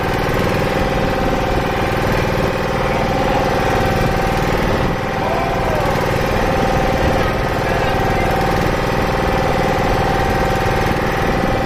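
Boat's motor running steadily at cruising speed, with water splashing along the wooden hull.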